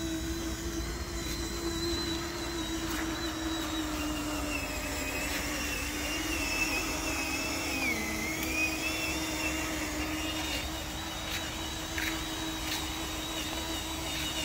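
Small electric motor and gearbox of a radio-controlled truck whining steadily. About eight seconds in, the pitch sags as the truck labours through deep mud, then climbs back.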